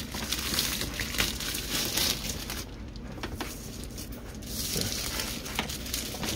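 Clear plastic shrink wrap crinkling and crackling as it is pulled off a cardboard box by hand, with a quieter stretch about three seconds in.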